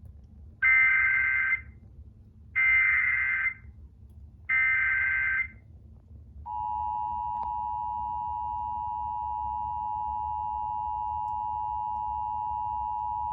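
Emergency Alert System header: three evenly spaced bursts of warbling SAME data tones, about a second each. About six and a half seconds in, the steady two-tone EAS attention signal starts and holds. Together they open a new alert, here a flash flood warning.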